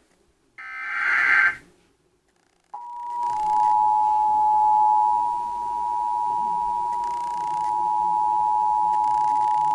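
Emergency Alert System alert: the last of the SAME header data bursts, a short harsh digital screech, then after about a second's gap the steady two-tone EAS attention signal starts and holds. Together they mark the opening of a relayed severe thunderstorm warning.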